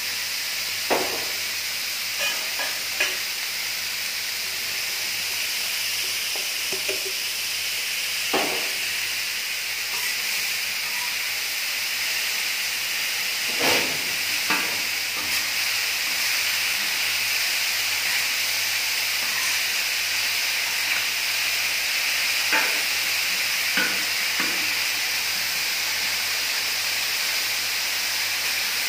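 Shredded vegetables sizzling and steaming on a hot steel flat-top griddle as stock is stirred in, a steady hiss throughout. Now and then a sharp clink of a metal spatula strikes the plate.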